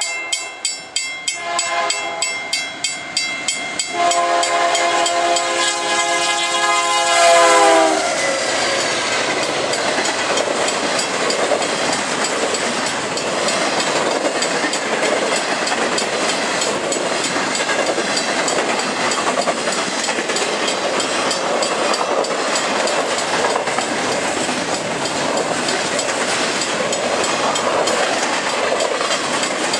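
A railroad crossing bell ringing in steady strokes. A GE AC4400CW locomotive's horn sounds from about four seconds in and drops in pitch as it passes, loudest just before eight seconds. After that, a long string of double-stack container cars rolls by with a steady clatter of wheels on rail.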